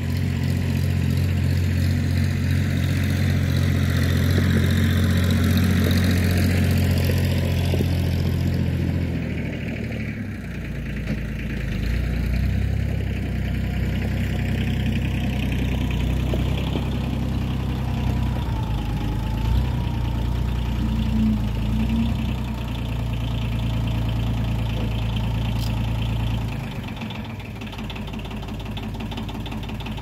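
Front-loader tractor's engine running as the tractor drives up, a steady engine note that drops in pitch about ten seconds in and falls in level near the end.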